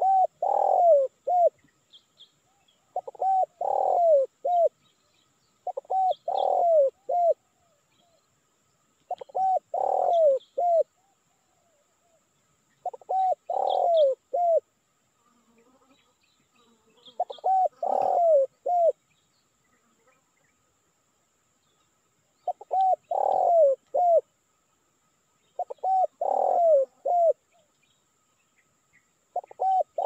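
Male spotted dove (tekukur) giving its cooing call. It is a short phrase of a few notes repeated about every three to four seconds, with one longer pause midway. This is the call used as a lure to draw wild doves. Faint small-bird chirps sound in between.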